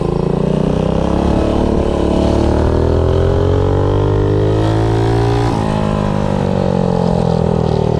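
Predator 212 single-cylinder engine fitted with a GX160 head, running on a mini bike under way. Its engine speed eases down for about five seconds, changes pitch suddenly, then holds and climbs slowly.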